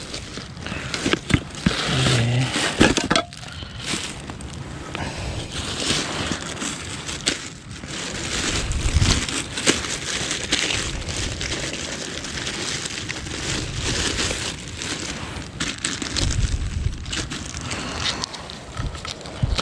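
Close, irregular rustling and crinkling of clothing and handled gear right against the microphone, with scattered small clicks and scrapes.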